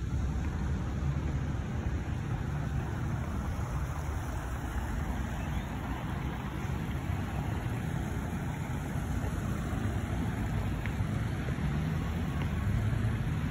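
Steady low rumble of distant city traffic, with no distinct events standing out.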